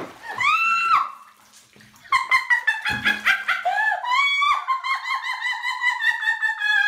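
A cat yowls once in a high, drawn-out wail that rises and falls. From about two seconds in, a fast warbling run of short notes plays, like a quick tune.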